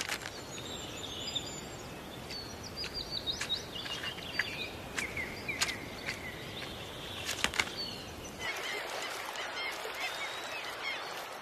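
Birds calling in short, high chirps, with scattered sharp clicks, over a steady outdoor hiss. A little over eight seconds in, the hiss changes to a softer background with fainter calls.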